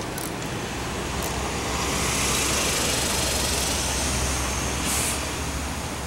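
Road traffic going by: a vehicle's noise swells about two seconds in and fades again near the end, over a steady low rumble.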